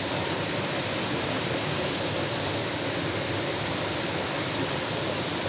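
Rushing water of a rocky river tumbling over small cascades, a steady, even noise.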